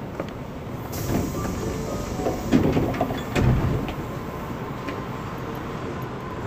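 Inside an Osaka Metro 66 series subway car, a hiss begins, then two heavy thuds come about a second apart, typical of the car's sliding doors closing at a station stop. A steady rumble runs underneath.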